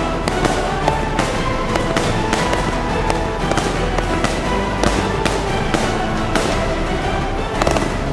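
Consumer firework cake firing: an irregular, rapid run of bangs and crackles, over background music.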